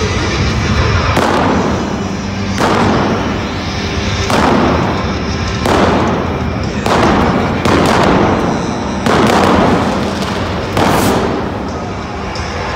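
Pyrotechnic flame cannons on an ice rink firing in turn, about eight bursts of fire a second or so apart, each a short loud blast of noise, over arena music.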